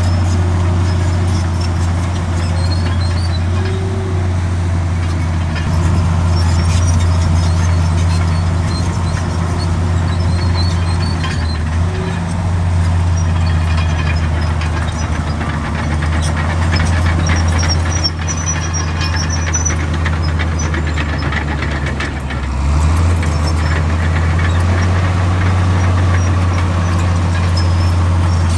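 Komatsu D65 bulldozer's diesel engine running steadily under load, with faint intermittent high squeaks from the tracks. About three-quarters of the way in the engine note dips briefly, then picks back up.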